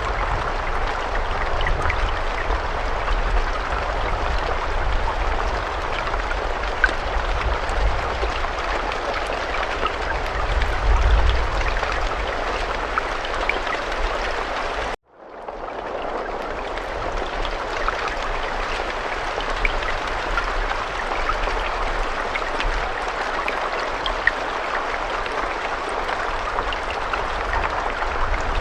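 Steady rain, a dense hiss scattered with small drop ticks over a low rumble. About halfway through it cuts out abruptly for a moment, then fades back in.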